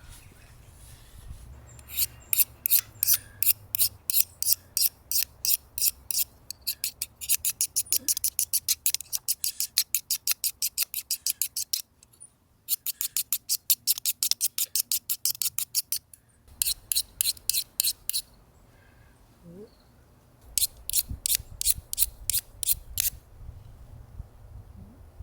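A striker scraped rapidly along a ferrocerium fire-starter rod, about four to six strokes a second, in several runs broken by short pauses, as she tries to throw sparks onto tinder.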